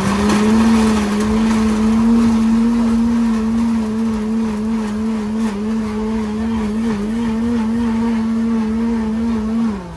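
High-speed countertop blender motor running steadily while blending a red fruit smoothie, with a tamper pushed down through the lid. The pitch wavers slightly as the tamper is worked, and near the end the motor is switched off and winds down with a falling pitch.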